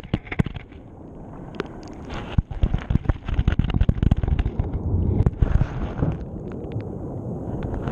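Action camera's housing knocking and scraping irregularly against stones on the sea bed as the water drags it, heard underwater over a low rumble of moving water.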